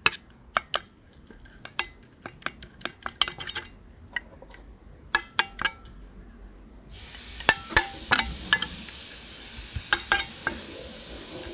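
Spatula clinking and scraping against a metal bowl as a lump of wet slime is stirred and flipped in liquid, with many quick taps at first and fewer later. A steady hiss comes in about seven seconds in.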